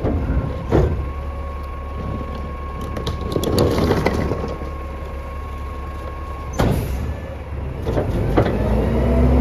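A Mack LEU CNG garbage truck's natural-gas engine idling while recycling is tipped by hand into its McNeilus rear-loader hopper: bottles and cans clatter in about three to four seconds in, and a sharp knock follows a few seconds later. Near the end the hydraulic packer starts its cycle, the engine speeding up under load with a rising whine.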